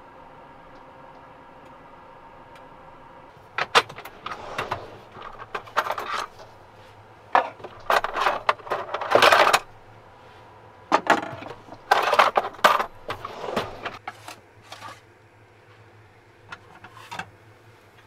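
Kitchen clatter from cooking in a camper van's galley: a knife, a pan and utensils clinking, clanking and scraping on the stove and counter. It comes as a string of short clanks from a few seconds in until near the end, over a low steady hum.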